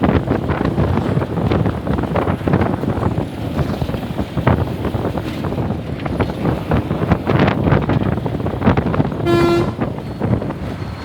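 Tamil Nadu government bus running along the road, its body rattling and knocking over a steady rumble. A single short horn toot sounds near the end.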